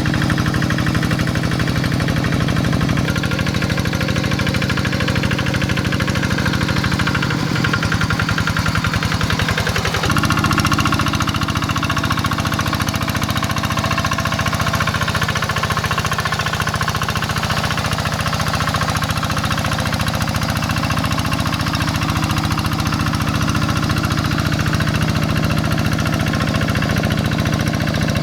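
Single-cylinder Kubota diesel engine of a two-wheel hand tractor running steadily under load while harrowing a flooded rice paddy, with a hard, knocking diesel beat. The engine note shifts slightly twice, about a quarter and a third of the way in.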